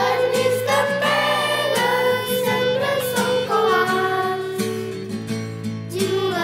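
Children singing a song together over an instrumental backing track with a steady beat.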